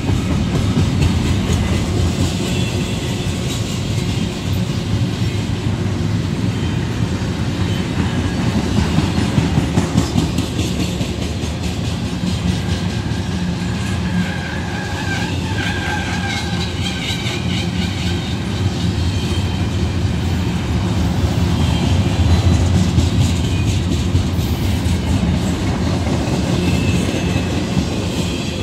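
Double-stacked intermodal freight cars rolling past: a steady rumble of steel wheels on rail, with clickety-clack as the trucks cross rail joints.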